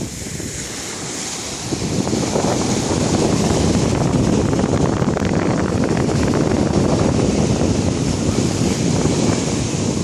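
Sea waves surging and washing onto a beach, with wind on the microphone. The wash swells about two seconds in and stays loud.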